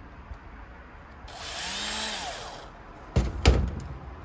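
Small electric screwdriver motor running for about a second and a half, its pitch rising then falling, while backing out a screw. Two sharp knocks follow about a third of a second apart.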